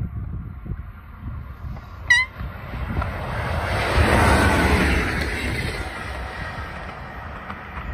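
A DB Class 111 electric locomotive hauling a TEE dining car passing at speed: a very short horn toot about two seconds in, then the rushing, rumbling noise of the train swelling to its loudest near the middle as the locomotive goes by and easing off as the coach follows.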